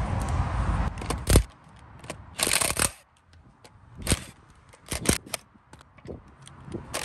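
Cordless DeWalt impact wrench rattling in several short bursts as it undoes the wheel bolts, with clicks from the bolts and the tool being handled in between.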